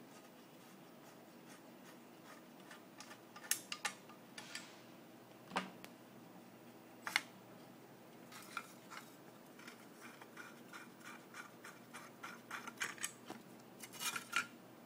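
Light metal clicks and taps as the wastegate actuator's bolts are worked off a turbocharger housing by hand, a few sharper knocks in the first half, then a run of many quick light clicks near the end.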